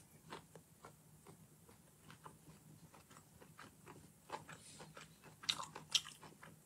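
A person chewing and biting food, with faint, irregular crunchy, wet mouth clicks that grow a little louder about five and a half to six seconds in.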